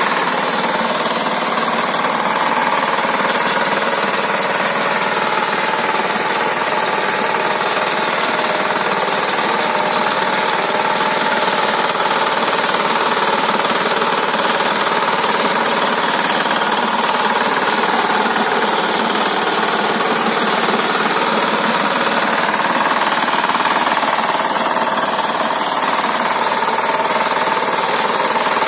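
Walk-behind tractor's engine running steadily under load, driving a rotary tiller through the garden soil.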